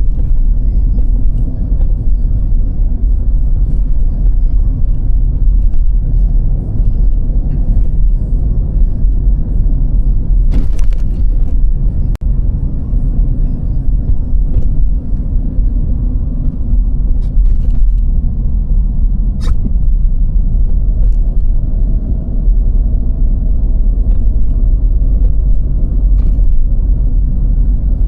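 A car driving on snowy roads: a steady low rumble of engine and tyres, with a few brief clicks and knocks here and there.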